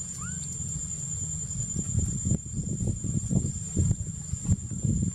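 Steady high-pitched insect drone, with a brief squeak near the start. From about two seconds in, low rumbling and irregular thumps grow louder over it.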